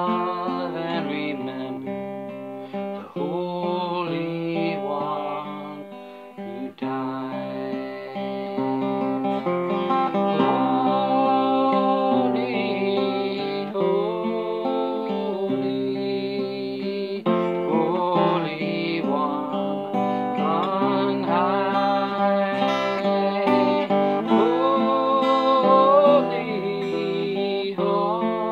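A man singing while playing an acoustic guitar, his voice holding long notes and sliding between them over the guitar chords.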